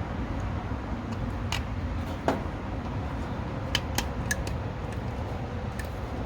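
A handful of light clicks and taps from handling small headlight and wiring parts: one, a second one, then three in quick succession, over a steady low hum.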